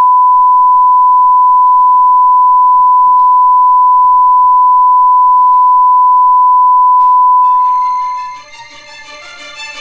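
A loud, steady pure tone at one pitch, the ear-ringing sound effect used in film for a character overwhelmed by distress. It holds for about seven seconds, then fades out as sustained background music comes in near the end.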